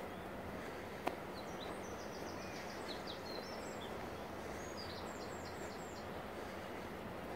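A small songbird singing two short phrases of rapid repeated high notes over a steady outdoor background hiss, with one sharp click about a second in.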